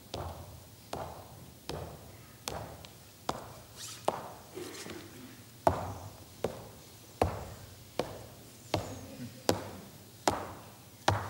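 Slow footsteps of hard-soled shoes on a stage floor, about one step every 0.8 s, each with a short echo of the hall and a little louder in the second half.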